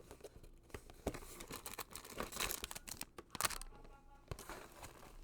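Packaging being handled while yarn is taken out of a kit box: irregular crinkling and rustling with scattered sharp crackles.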